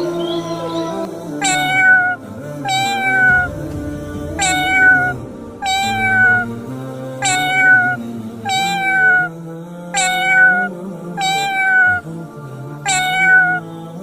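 A cat meowing over and over, short alike calls that fall slightly in pitch, about one a second, over background music.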